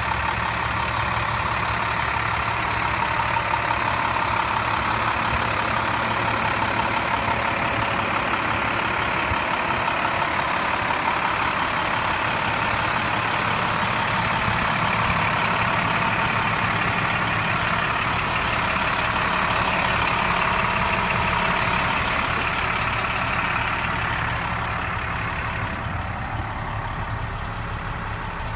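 International DT466 inline-six diesel of a 2007 International 4400 dump truck idling steadily. Near the end it becomes a little quieter and duller.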